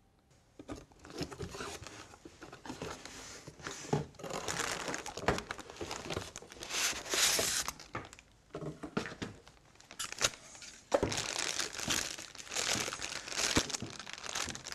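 Packaging wrap of a new printer image drum unit crinkling, rustling and tearing as it is unwrapped, in uneven handling bursts with small clicks.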